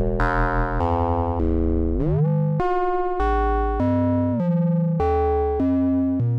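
Make Noise 0-Coast synthesizer oscillator playing a run of pitched notes, about two a second. About two seconds in, one note glides upward in pitch.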